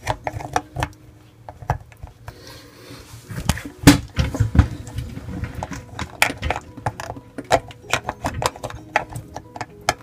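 Irregular plastic clicks, taps and knocks as a Bosch dishwasher's drain impeller cover is worked back into its channel in the sump by hand, the loudest knock about four seconds in.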